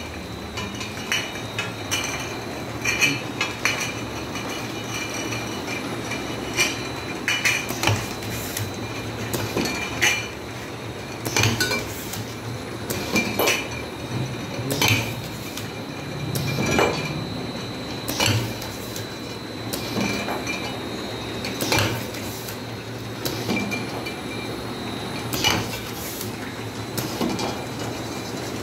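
Wine bottle labeling machine running, with glass bottles clinking sharply every second or two over a steady machine hum.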